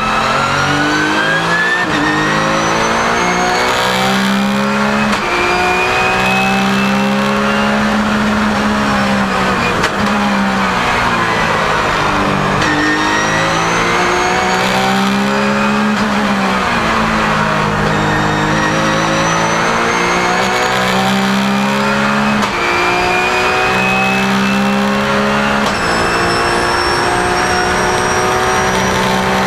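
Porsche 997 GT3 Cup race car's flat-six engine at racing speed, heard from inside the cabin. The revs climb and drop again and again through gear changes and braking for corners. A thin high whine rises and falls with them.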